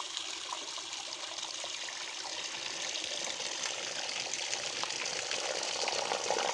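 Steady gush of water from the outlet pipe of a homemade 775 DC-motor water pump, splashing onto the ground. It grows a little louder toward the end.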